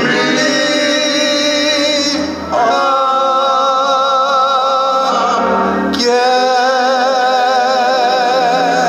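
Voices singing a slow gospel song, holding long notes with strong vibrato in three drawn-out phrases, with a short break about two and a half seconds in.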